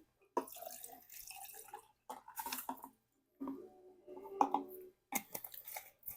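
Close-miked wet chewing and lip-smacking of saucy barbecue food, coming in several short bouts with sharp sticky clicks.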